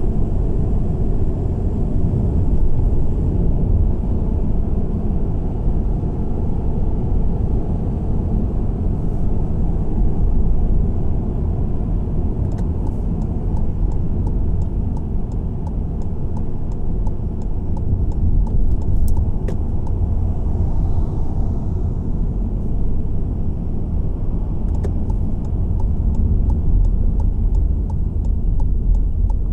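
Car driving, a steady low rumble of engine and tyre noise on the road. A regular light ticking starts in the last few seconds.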